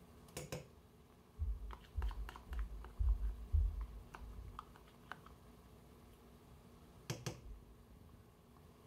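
A spoon clicking and knocking against a cooking pot as tomato paste is scraped off into it: a sharp clatter near the start, a run of small taps with dull low thumps in the middle, and another clatter about seven seconds in.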